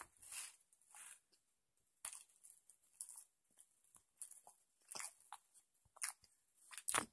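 Person chewing a bite of a steak sub with bell peppers close to the microphone: faint, irregular crunching.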